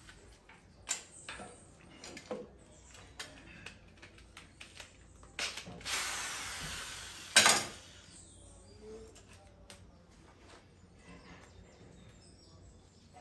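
Cordless drill running for about two seconds against car-body sheet metal, fading slightly and then ending in a short, louder burst. A few light clicks of handling come before it.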